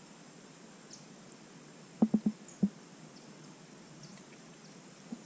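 Quiet open-air background broken by four quick, dull knocks a little past two seconds in.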